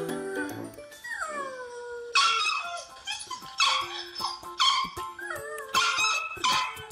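A dog gives a falling howl-like whine, then a run of about five sharp yelping barks, roughly one a second.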